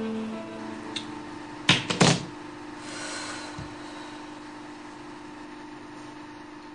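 Bowed string music fades out, and about two seconds in comes a quick cluster of three or four sharp knocks, the loudest sounds here. A steady low hum follows.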